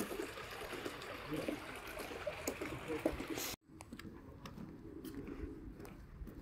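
Water splashing and trickling from a small fountain jet bubbling up in a swimming pool, cut off abruptly about three and a half seconds in; after that, only quieter outdoor background with a few faint clicks.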